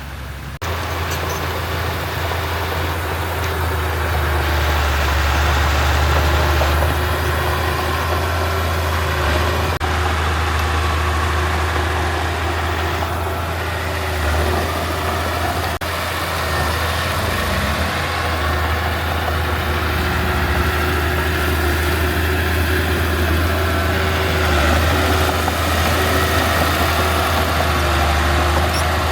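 Heavy construction machine's diesel engine running steadily with a strong low drone, starting abruptly about half a second in.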